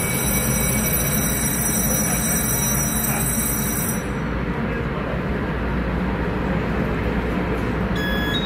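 Electric multiple-unit train standing at an underground platform with its doors open: a steady low rumble with a thin high-pitched electrical whine that cuts off abruptly about halfway through, then a beeping tone near the end.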